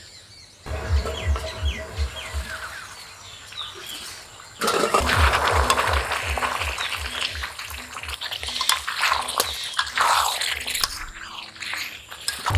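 Birds chirping over a low rapid pulsing. About four and a half seconds in, chicken and bottle-gourd curry takes over, sizzling and bubbling loudly in an open kadai as it is braised down.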